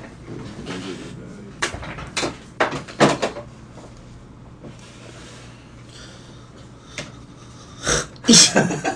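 Bowls and dishes knocking and clattering on a table as food is set out: a few sharp knocks about two to three seconds in, then louder ones near the end.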